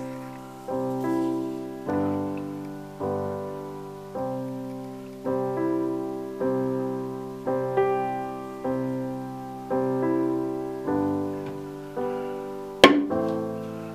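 Solo piano background music: slow chords struck about once a second, each ringing and fading before the next. A single sharp knock near the end.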